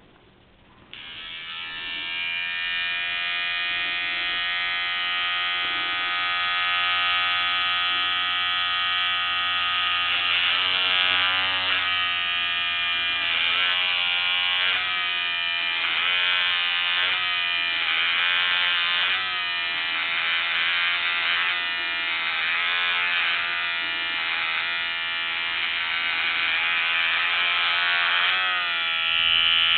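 Electric shaver running against a thick moustache, switched on about a second in. It hums steadily at first, then its pitch dips and recovers over and over as the cutter works through the hair.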